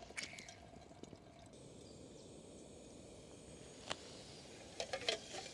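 Quiet hand-squeezing of a lemon half over a metal pot, with faint dripping of juice, then a single light tap about four seconds in and a few soft knocks near the end.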